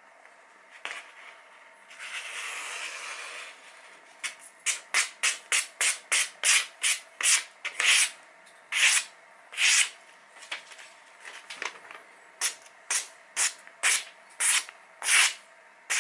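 A sharp square-bladed Japanese vegetable knife slicing through a sheet of glossy magazine paper held in the air. About two seconds in there is a longer stretch of paper noise, then a quick run of short slicing strokes, two to three a second, with a brief pause midway.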